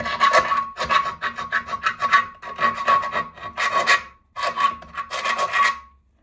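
Small round file rasping back and forth in a hole in the painted metal chassis frame of a 5-inch gauge Maxitrak Wren locomotive kit, clearing paint out of the hole so a part will fit. Quick repeated strokes with a brief pause about two-thirds of the way through, the frame ringing with a steady tone under the scraping, stopping shortly before the end.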